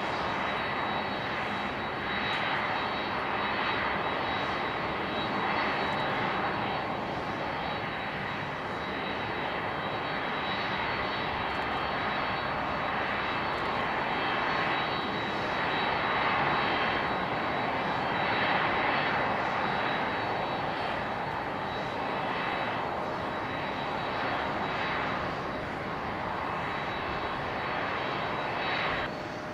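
Jet airliner engines running at a steady level: a constant rush with a thin high whine, easing off slightly just before the end.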